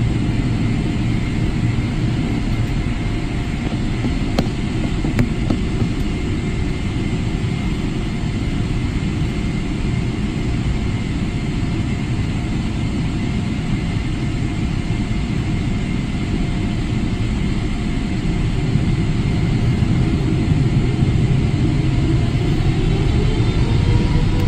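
Cabin noise of a Boeing 777-300ER beside its GE90-115B engine while taxiing: a steady rumble with a faint steady whine. Near the end the whine rises in pitch as the engines begin to spool up for takeoff.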